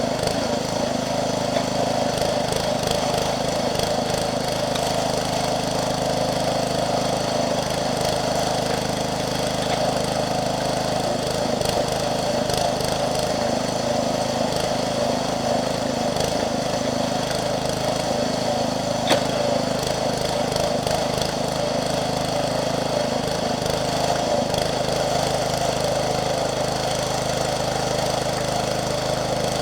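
Small engine of a Jansen MB 300 towable backhoe running steadily at constant speed while the machine digs. A single short sharp click about two-thirds of the way through.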